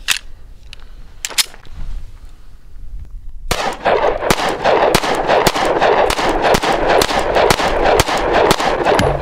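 A compact 9mm semi-automatic pistol firing 115-grain FMJ rounds in a rapid string of about fifteen shots, roughly three a second, starting a little over three seconds in. The shots echo, filling the gaps between them. Before the string there are a couple of sharp clicks as the pistol is handled.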